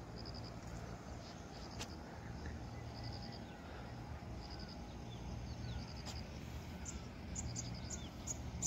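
Cricket-like insect chirping in short trills of a few pulses, repeating about once a second, over a steady low outdoor rumble. Faint whistles and a few sharp chirps come near the end.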